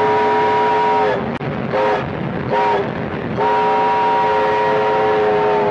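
Southern Pacific Desert Star brass five-chime steam whistle on steam locomotive no. 2248 blowing its chord: a long blast, two short toots, then another long blast, over a steady rushing background noise.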